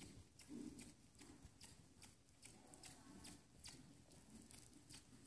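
Faint hoofbeats of a horse trotting on the sand footing of an indoor arena, heard as a string of light irregular clicks, a few a second.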